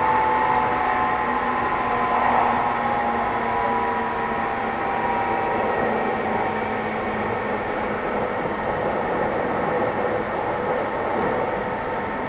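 Tokyu 9000 series electric train heard from inside a motor car while running between stations: steady wheel and track rumble, with the whine of the GTO-VVVF inverter and traction motors heard as several steady tones, plainest in the first few seconds and then sinking into the rumble.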